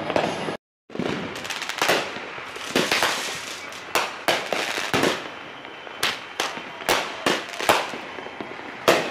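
Aerial fireworks bursting overhead: an irregular run of sharp bangs and crackles, about two to three a second, after a momentary gap in the sound just under a second in.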